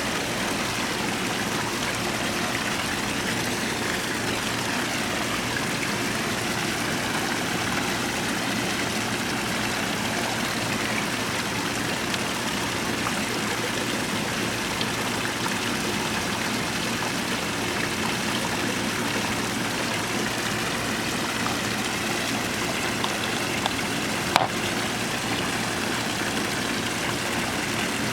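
Koi pond water running steadily, a continuous splashing trickle from the pond's circulating water, with a faint steady hum under it. A single sharp click sounds once near the end.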